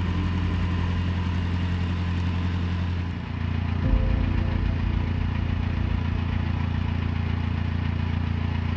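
A narrowboat's engine running steadily with a low, pulsing hum, dipping briefly about three seconds in before it picks up again.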